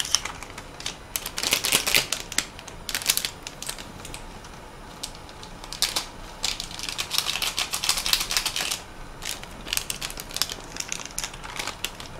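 Bursts of rapid light clicking and tapping, several clusters of quick sharp clicks with short gaps between them.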